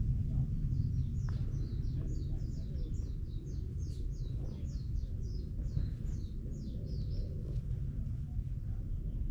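A bird calling in a fast run of short, falling high notes, about four a second, starting about a second in and stopping a couple of seconds before the end. A steady low rumble sits underneath.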